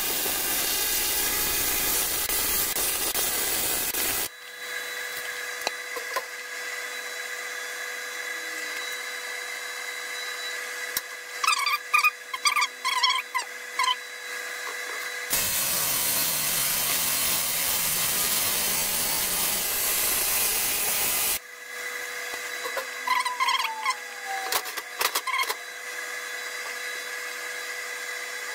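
AC TIG welding arc on a thick aluminium Yamaha F80 outboard cylinder head: a steady hiss for about four seconds that cuts off, then the arc burns again for about six seconds in the middle. In the pauses a quieter steady hum, with a few short chirps.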